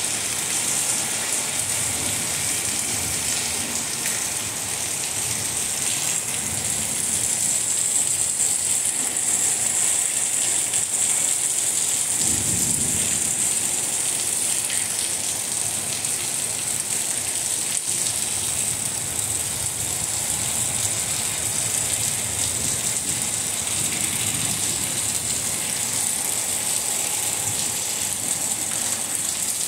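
Steady rain falling, with low rumbles of thunder, the plainest about twelve seconds in.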